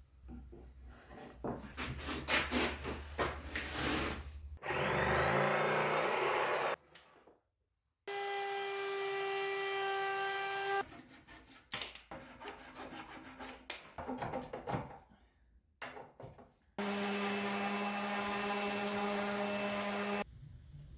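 Woodworking shop sounds in quick cuts. First comes wood being rubbed or sawn by hand. Then several short stretches of power tools run steadily, each starting and stopping abruptly, with scattered knocks between them.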